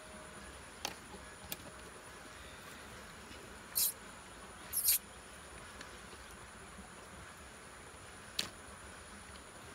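Steady high-pitched insect drone in the background, with a few light clicks and two short scraping rasps as thin wire is twisted and handled around a bamboo tube.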